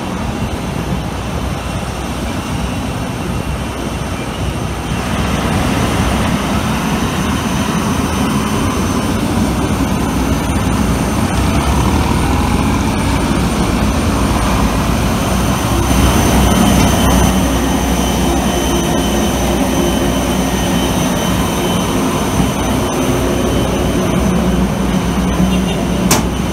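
Jet aircraft noise on an airport apron: a steady high-pitched whine over a low rumble, getting louder about five seconds in.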